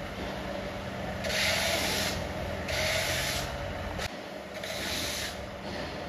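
Repeated rubbing strokes of a plastering tool worked over a cement-plastered wall, four in all, each lasting under a second.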